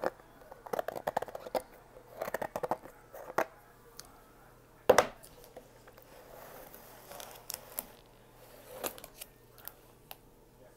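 A small plastic container handled close to the microphone: quick clusters of little clicks and crackles, one sharp loud click about five seconds in, then a few scattered single clicks.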